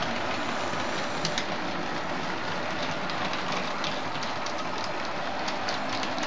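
00 gauge model passenger train running along the layout track, a steady rolling whir with many light irregular clicks from the wheels on the rails. It is picking up speed on full track voltage after pulling away from the diode-fed slow and stop sections.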